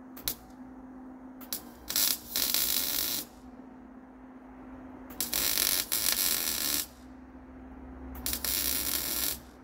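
MIG welder tack-welding steel mounts onto an air tank: three bursts of crackling arc, each one to one and a half seconds long and cut off abruptly, with a few sharp clicks before the first, over a steady low hum.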